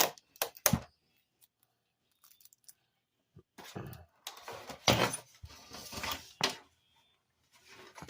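Small hard parts being handled and knocked together: a few sharp clicks, a quiet pause, then a few seconds of rattling and scraping before it stops.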